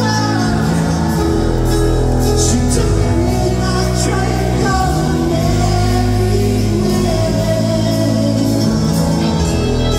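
Live rock band playing loudly over the venue's PA, with drums and bass under a sung melody.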